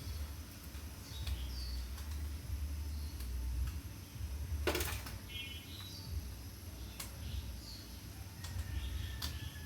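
Small birds chirping on and off over a steady low rumble, with one short, sharp noise just under halfway through.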